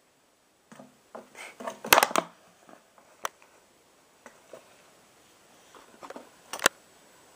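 Empty plastic water bottle crackling and crinkling as a puppy paws and mouths it, in irregular sharp crackles that are loudest about two seconds in and again near the end.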